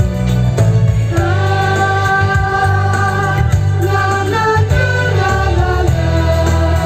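Backing-track pop music over a PA system with no lead vocal: a steady bass line and held, sustained chords that come in about a second in.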